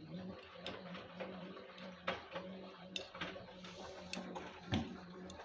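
LG WD-1054FB washing machine drum starting to turn: a steady low motor hum begins at the start, with irregular clicks and knocks from the tumbling load.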